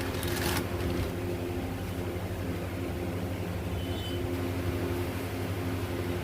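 Steady low mechanical hum of a running machine, with quick clicking in the first half second.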